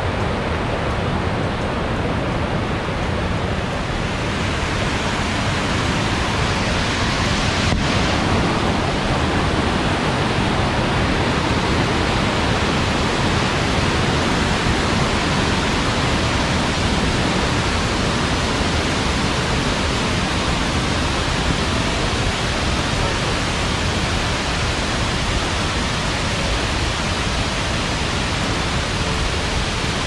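Waterfall cascading down a rock face: a steady rushing of water that grows brighter and fuller about a quarter of the way in.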